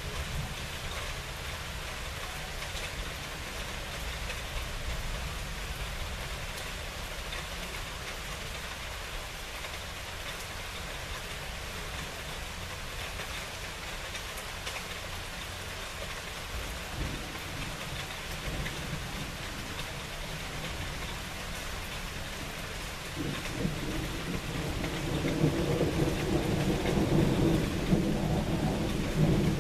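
Steady rain falling in a thunderstorm. About two-thirds of the way through, thunder starts rumbling and grows louder to the end.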